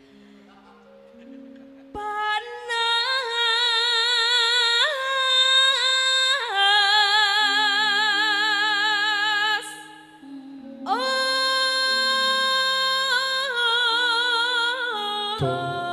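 A female sinden sings in Javanese style over soft gamelan accompaniment: long held notes with a strong vibrato. The low instrument notes play alone at first, the voice comes in about two seconds in, and it breaks for breath around ten seconds before a second long phrase.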